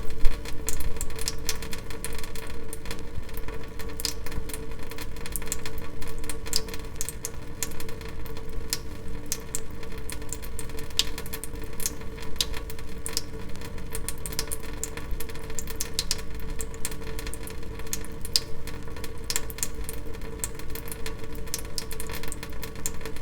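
Water dripping steadily: many irregular, sharp drops landing several times a second, over a steady hum.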